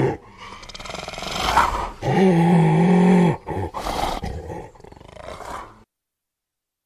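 Spotted hyena giving hoarse calls: a rasping call that swells over the first two seconds, then a loud, held, low call about a second long, then a few shorter rasping calls. The sound cuts off abruptly near the end.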